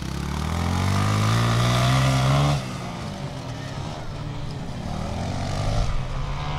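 Off-road motorcycle engine accelerating through a dirt-course turn, its pitch climbing for about two and a half seconds. The throttle is then shut off suddenly, and the engine runs on lower before slowly building again near the end.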